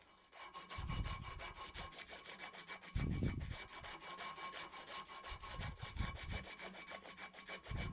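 Sandpaper strip drawn rapidly back and forth around the end of a copper pipe held in a vise, a continuous run of quick, even scratching strokes. The pipe end is being cleaned to bare shiny copper and scratched so that solder will grip it.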